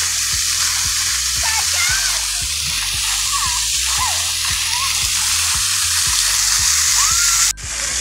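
Splash-pad fountain jets spraying and splashing onto the wet pavement: a steady bright hiss of falling water. It cuts out for an instant near the end.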